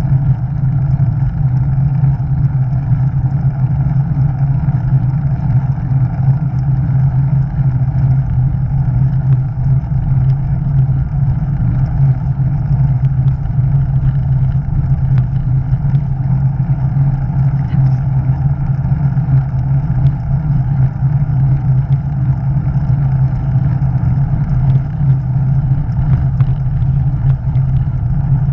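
Steady rush of wind and road noise on a camera mounted on a moving vehicle, with a constant low drone underneath.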